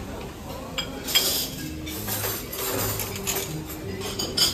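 Dishes and cutlery clinking, with a sharp clink about a second in and another near the end.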